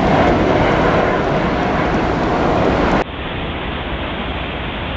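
Steady jet-engine roar of an American Airlines Boeing 777 climbing out after take-off. About three seconds in it cuts abruptly to a quieter, duller steady rush from a Malaysia Airlines Boeing 737 taking off.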